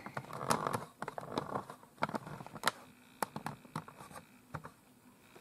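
Handling noise of a plastic inkjet printer being shifted on a bed: scattered light clicks and knocks from the casing, with soft rustling of the bedding in the first second or so.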